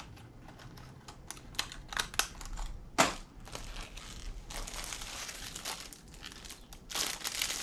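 Fishing-lure packaging crinkling as it is handled, with scattered clicks and one sharp click about three seconds in.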